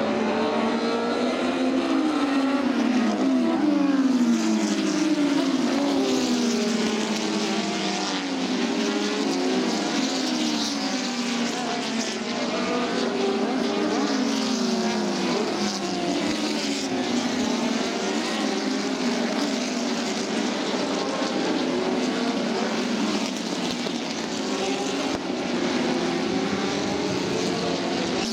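Historic open-wheel racing cars passing through a corner in a pack, their engines revving and changing gear, so that many overlapping engine notes climb and drop. Loudest about four seconds in.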